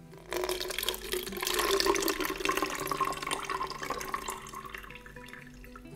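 A green tea drink being poured from a glass through a fine stainless-steel mesh strainer into a glass: a splashing pour that builds over the first two seconds and trails off by about five seconds.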